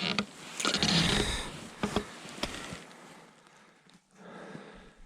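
Close rustling and handling noise with a few sharp knocks, loudest in the first second and a half, then dying down.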